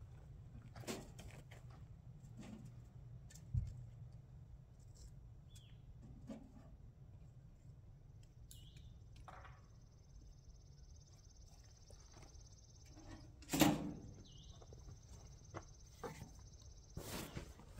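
Quiet outdoor ambience: a low steady rumble with scattered light knocks, one loud sharp knock a little past the middle, and a faint high steady whistle through the second half. Footsteps and things being handled near the end as someone comes back to the table.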